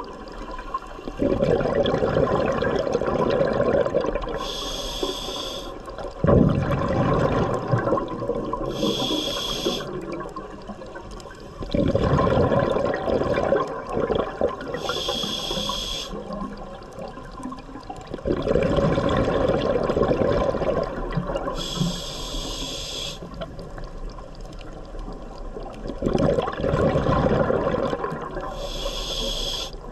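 Scuba diver breathing through a regulator underwater, about five breaths in a steady rhythm. Each breath is two to three seconds of bubbling from the exhale, then about a second of hiss as the regulator delivers air for the next inhale.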